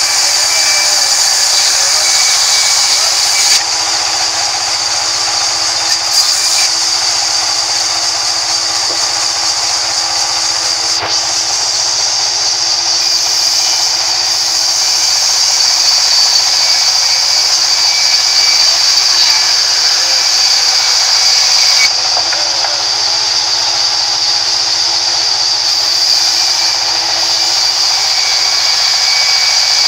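Sawmill band saw ripping lengthwise through a rain tree log: a loud, steady, high-pitched whine of the blade in the wood over the hum of the mill's motor, its hiss shifting abruptly a few times as the cut goes on.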